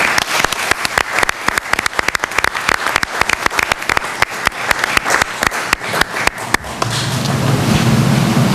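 Applause from a small audience: many separate hand claps that thin out and stop about six and a half seconds in, leaving a steady low hum.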